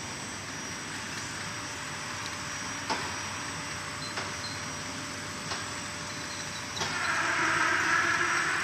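Rotary bottle rinser on a bottling line running steadily, with a sharp click about every second and a half as its grippers and the glass bottles knock. Near the end a louder rushing hiss comes in over the running noise.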